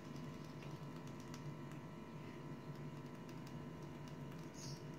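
Faint steady hum of room tone with a few light, scattered ticks.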